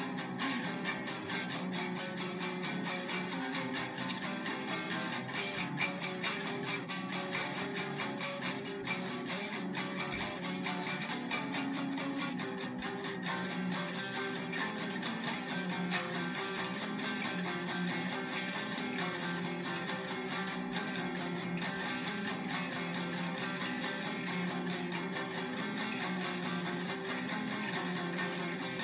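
Electric guitar worked with a stick against the strings: a dense, unbroken stream of rapid strikes over sustained ringing pitches, played as a noise piece.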